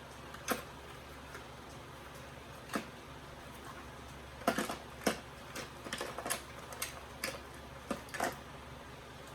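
Die-cast toy cars clicking and clattering as they are picked up and set down against each other, a few scattered knocks at first and then a quicker run of clicks in the second half.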